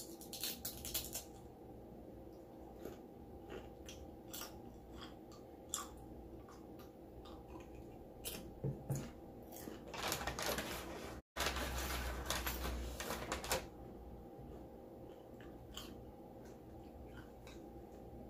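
Close-up eating sounds: chewing with scattered small clicks, and a louder stretch of rustling or scraping about ten to thirteen seconds in.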